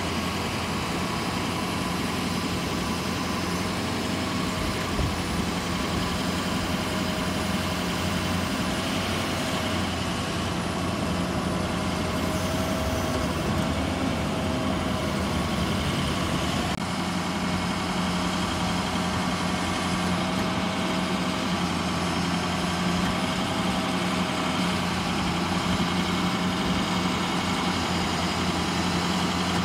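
Ford 6.0L Powerstroke V8 diesel running steadily at idle, driving the PTO hydraulics, with a steady whine over the engine hum that wavers gently in pitch as the IMT crane boom is moved.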